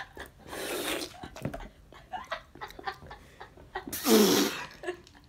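Girls breathing hard and laughing under their breath after tasting a bad jelly bean, with a sudden loud breathy burst about four seconds in.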